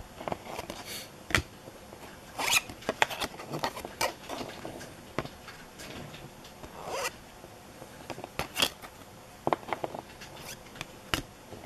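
Cardboard trading cards being shuffled in the hands, slid against one another and moved through a small stack: irregular soft swishes and sharp snaps of card stock.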